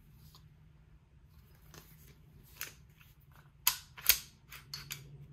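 Sig Sauer P226 X-Five's stainless steel slide being pulled back by hand: a few light metallic clicks, then two sharp clicks about half a second apart as the slide locks open, followed by smaller ticks.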